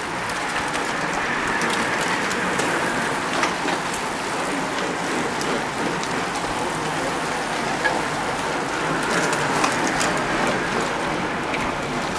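A pack of racing bicycles riding past close by: a steady rushing hiss of tyres on the road, with scattered light clicks.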